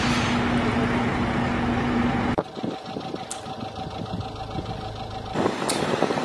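Diesel engines of heavy construction machinery, a mobile crane and a tracked excavator, running steadily with a humming tone. The sound changes abruptly about two and a half seconds in, dropping quieter with a higher hum, and again about five seconds in, turning noisier.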